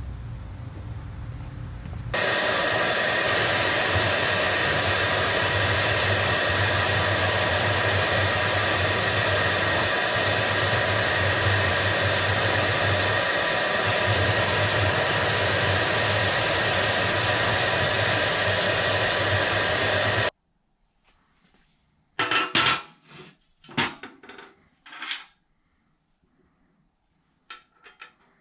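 A steady, loud hiss with a low hum, like a running workshop tool, starting sharply about two seconds in and cutting off suddenly about eighteen seconds later. After it come a few sharp metallic clinks and knocks.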